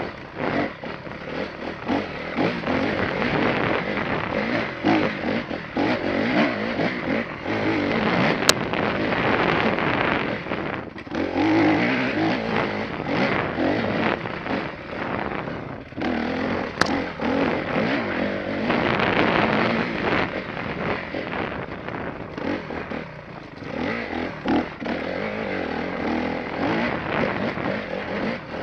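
Enduro dirt bike engine revving up and dropping back again and again as the throttle is worked over a rough trail, mixed with wind and rattle on a helmet-mounted camera. Two short sharp clicks stand out, about 8 and 17 seconds in.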